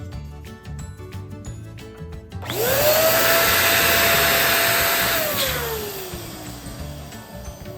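Electric balloon pump inflating a balloon: its motor spins up quickly about two and a half seconds in, runs steadily with a rushing whine for about two and a half seconds, then winds down and fades. Background music with a steady beat plays throughout.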